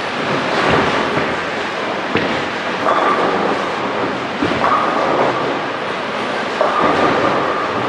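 Bowling alley din: balls rolling down the lanes and pins clattering across many lanes, with a few sharp crashes.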